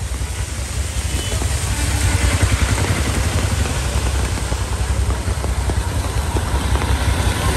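Auto-rickshaw engines running as they drive through a flooded street, tyres splashing and throwing up water, under a steady hiss of heavy rain. It grows louder about two seconds in as a rickshaw passes close.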